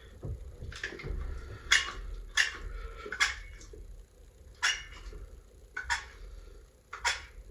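Caulking gun being pumped to squeeze silicone caulk out of its tube, a short sharp click or squeak with each pull of the trigger, roughly once a second.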